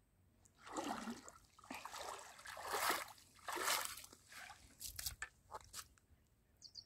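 Hooked carp splashing at the water surface as it is pulled out on the line: several loud splashes over about four seconds, then a few short sharp taps.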